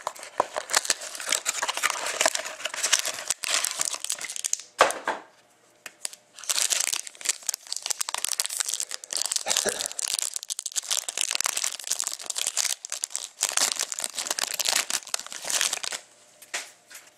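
A foil trading-card pack from a cardboard hobby box is crinkled and torn open, crackling in dense bursts. There is a short pause about five seconds in, and the crackling stops shortly before the end.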